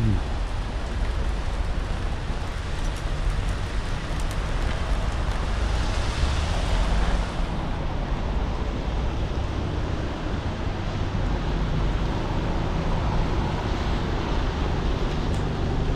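Steady rain on a city street with traffic on the wet road; car tyres hiss past, loudest about six to seven seconds in.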